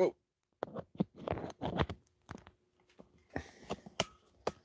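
Handling noise from a phone camera being moved about: light rustling and scattered small clicks.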